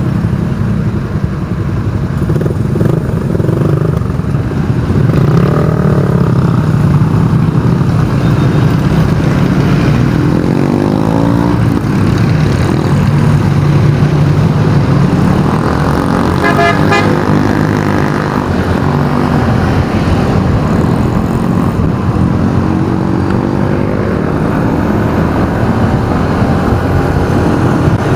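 City road traffic: car and motorcycle engines running and passing, with a vehicle horn toot among them.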